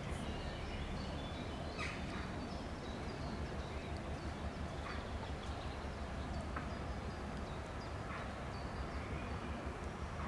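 Outdoor ambience: a steady low background noise with scattered short bird calls.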